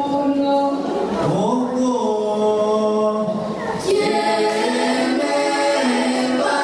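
A small group of children singing unaccompanied in several voices, holding long notes and moving to new notes about a second in and again near four seconds.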